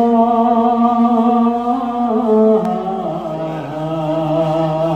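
A man's voice chanting a noha, a Shia lament, in long held notes, the pitch stepping down about halfway through.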